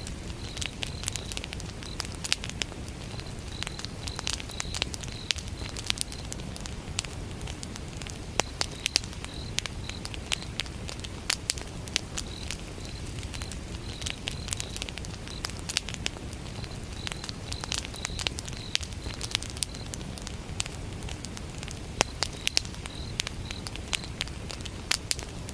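Wood fire burning, with many sharp crackles and pops over a steady low flame noise. A cricket chirps at a high pitch in runs of quick pulses, with brief pauses between runs.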